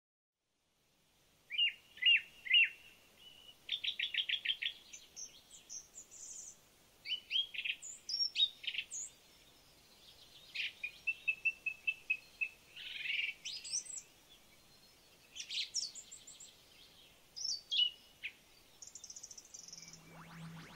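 Garden birds singing: a string of varied, high-pitched chirps, whistled phrases and quick trills, one bird after another. Near the end a low steady electronic hum comes in.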